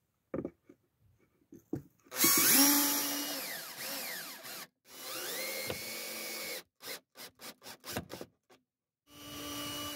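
Makita cordless drill-driver pre-drilling pilot holes into a wooden frame, in three runs of the motor. The first run starts about two seconds in and is the loudest and longest; it drops in pitch as it goes. The second rises and then holds steady, and a few short clicks come before a shorter last run near the end.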